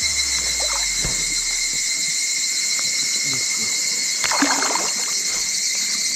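Steady chorus of insects with a high buzzing, over water lapping and sloshing around a float tube, with one louder slosh about four seconds in.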